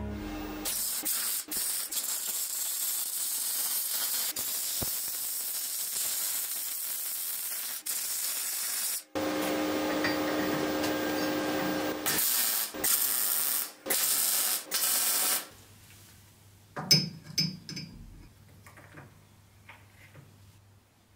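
Arc welding a small steel tab onto the end of a steel pipe: a steady hiss for several seconds, then a few shorter bursts. Later come a few sharp metallic clicks as a magnetic-base dial indicator is set up against the pipe.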